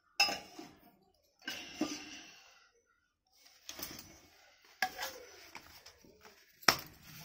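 Stainless steel plates and bowls clanking against each other as they are handled and set down: about five sharp clanks, the loudest just after the start and near the end, with softer handling noise between.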